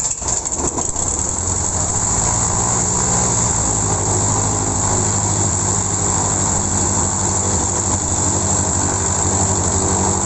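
Cessna 150M's four-cylinder Continental O-200 engine, a little uneven for about the first second, then running steadily at idle with a fast, even beat.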